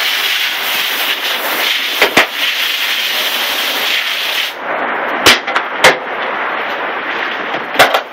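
Garden hose spraying water with a steady hiss, broken by several sharp clicks.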